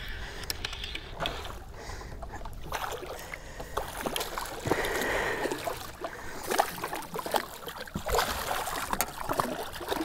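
A hooked lake trout splashing at the surface right beside a boat's hull, with water lapping against the boat; the splashes come in short, irregular bursts that grow busier and louder in the second half.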